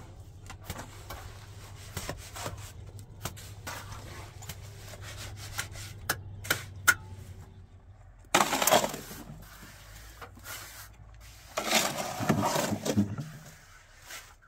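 Scattered light taps and clicks, then two louder rasping scrapes, one about eight seconds in and one about twelve seconds in.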